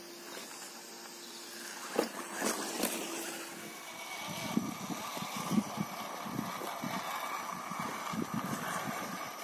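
Radio-controlled rock crawler's electric motor and gears whining steadily from about four seconds in, with irregular knocks and scrabbling of the tyres and chassis on rock as it climbs. A few sharp clicks come just before the whine starts.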